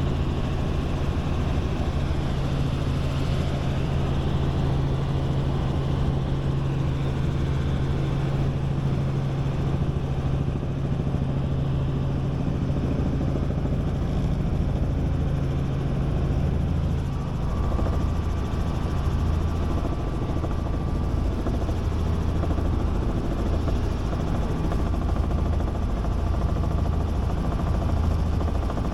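Robinson R44 Raven I helicopter in flight, heard from the cabin: the six-cylinder Lycoming piston engine and rotor drone steadily. A little past halfway the low drone shifts slightly and a thin high tone comes in.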